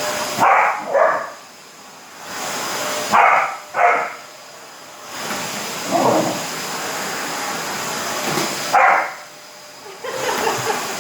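Labrador puppy barking at a running vacuum cleaner: about six barks, mostly in pairs, over the vacuum's steady whir, which cuts out and comes back several times.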